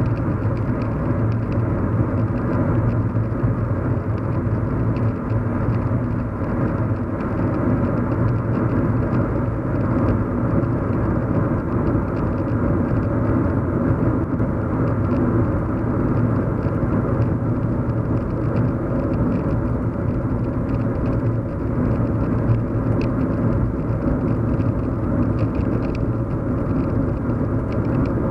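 Steady hum and road rumble inside a moving car, with no change in engine pitch: a low steady drone under a haze of tyre and road noise.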